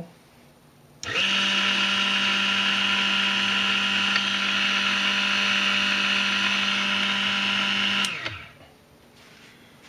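Spindle motor of The First Tool mini vertical milling machine switched on and spinning the milling bit unloaded: a steady electric whine that starts suddenly about a second in, holds an even pitch for about seven seconds, then is switched off and winds down quickly.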